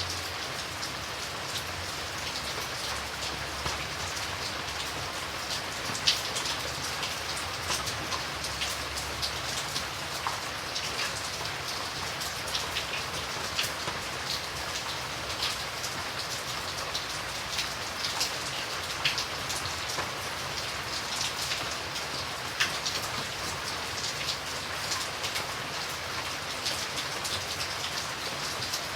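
Steady rain with the distinct patter of individual drops hitting a surface, one drop landing sharper than the rest about six seconds in.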